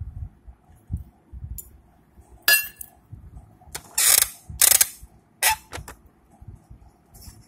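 Plastic toy kitchenware being handled: a handful of short, loud rattling and scraping bursts, bunched together in the middle.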